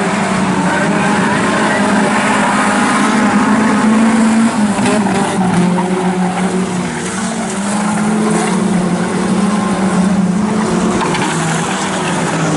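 A pack of junior sedan race cars racing on a dirt speedway track, several small car engines running hard at once, their pitch wavering up and down as the drivers work through the turns.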